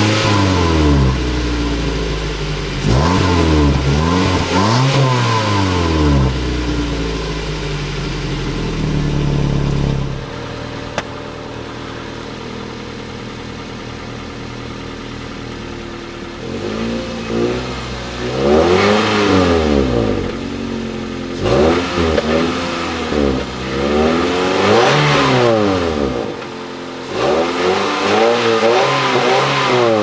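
Car exhaust at the tailpipe, revved several times and briefly held up. After a cut about ten seconds in, a 2006 Toyota Corolla S's four-cylinder exhaust idles steadily, then is revved in about five quick blips that each rise and fall back to idle.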